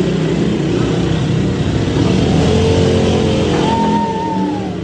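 ATV engine running with a rough, uneven rumble as the quad is ridden.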